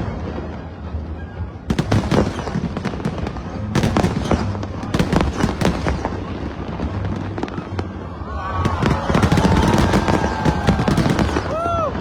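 Aerial fireworks display going off in rapid bangs and crackles, with several sliding whistling tones over the bursts in the last few seconds.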